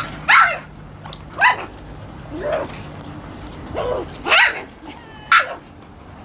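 Dogs barking: about six short, separate barks spread over a few seconds, some falling in pitch.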